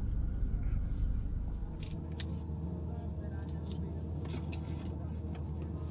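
Keys jangling and scattered light clicks inside a car, over a steady low hum.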